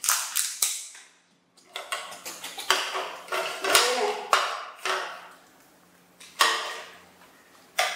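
Small plastic cups and scalloped plastic plates being handled on a tabletop as jelly is served: a run of sharp clicks, knocks and crinkles, with a short pause about a second in.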